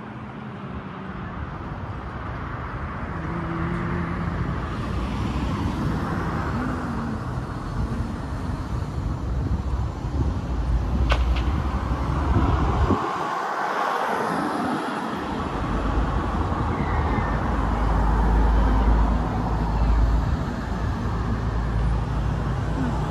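Steady outdoor road-traffic noise with a low rumble of wind on the microphone, swelling over the first few seconds; a single sharp click about eleven seconds in.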